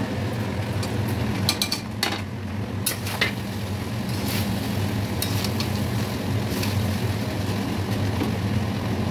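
Metal spatula scraping and clinking against a steel wok as fried rice is stirred, in scattered strokes, over a steady low hum.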